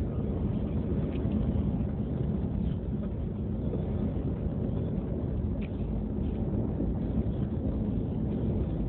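Car driving on an unpaved dirt track, heard from inside the cabin: a steady low rumble of engine and tyre noise, with a couple of faint clicks.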